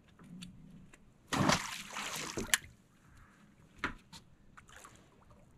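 Water splashing and sloshing for about a second, ending in a sharp knock, as a released catfish goes back into the lake; a single light knock follows later.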